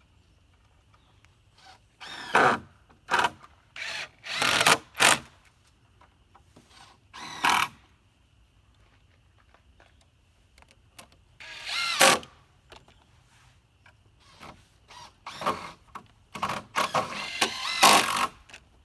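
Power drill driving small screws into timber in repeated short bursts, each lasting under a second, with pauses between them.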